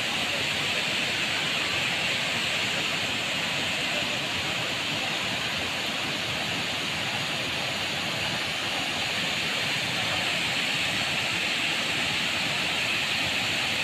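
Steady, even rush of water from Tinuy-an Falls, a broad curtain waterfall pouring over a rock ledge.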